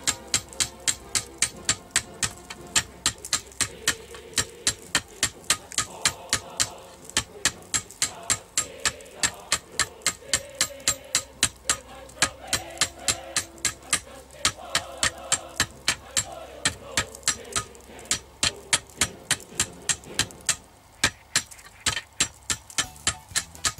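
Hand hammer striking a glowing layered steel billet on a steel anvil plate, steady blows at about three a second. The billet is at welding heat: the blows forge-weld the 41-layer pack of hacksaw-blade steel and tin plate into Damascus steel.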